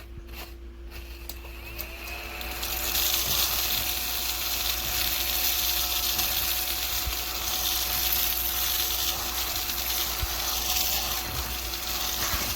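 Battery-powered mini desktop vacuum cleaner running with a steady whine, sucking up spilled table salt. A loud hiss joins the whine about two to three seconds in and holds steady.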